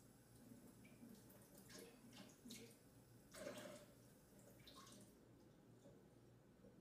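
Near silence with a few faint clinks and drips as teaspoons of water are measured into a bowl.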